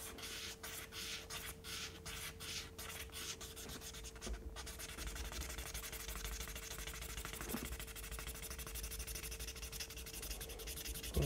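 Small RC car suspension part rubbed back and forth in quick strokes on fine P1000 wet-and-dry sandpaper, sanding off material so the part fits. The scratching is faint.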